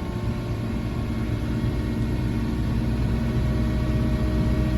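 Wacker Neuson skid steer's diesel engine running with the high-flow hydraulics driving a Virnig snowblower, engine speed being raised so the sound grows steadily louder.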